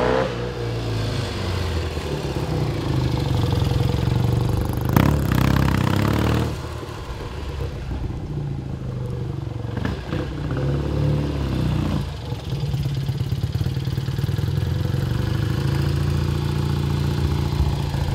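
A 1965 BSA Lightning 650's parallel-twin engine running, its revs rising and falling. It is louder for about two seconds a third of the way in, then settles into a steady run.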